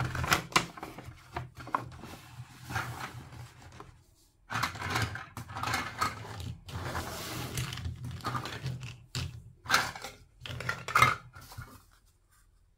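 Paper takeout bag crinkling and rustling as toy play-food pieces are packed into it, broken by sharp taps and clicks of the toy pieces handled and set down on a table.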